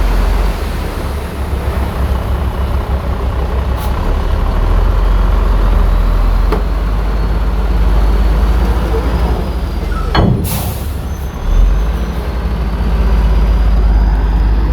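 Heavy diesel earthmoving machinery running steadily with a deep engine drone. A couple of faint clicks are followed by a short, sharp burst of noise about ten seconds in.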